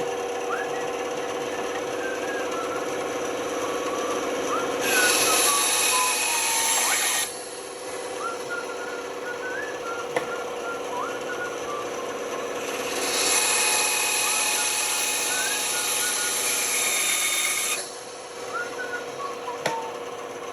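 Band saw running steadily, its blade cutting wood in two passes: one of about two and a half seconds, starting about five seconds in, and a longer one of about five seconds, starting about thirteen seconds in. Between the cuts the saw runs free.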